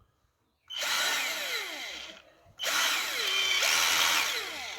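Philco Force PPF03 12 V cordless drill/driver running free twice: a run of about a second and a half, a short pause, then a run of about two seconds, with whining tones that slide down in pitch during each run.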